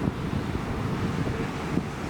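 Wind buffeting the microphone: an uneven low rumbling noise.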